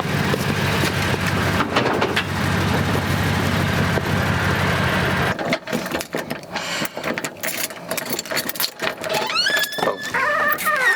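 A vehicle's engine and road noise, a steady low hum for about five seconds. It breaks off suddenly into scattered clicks and knocks, and near the end comes a high whining sound that rises and falls in pitch.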